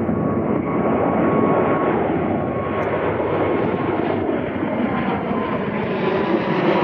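Boeing 777-300ER's twin GE90 turbofans at take-off thrust: a loud, steady jet engine noise with a faint whine, getting louder and brighter toward the end as the airliner draws nearer.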